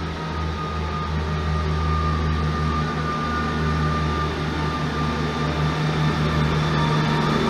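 East Midlands Trains Class 158 diesel multiple unit pulling into the platform: a steady low diesel engine hum with a high whine above it that falls slightly in pitch, growing louder as the train comes closer.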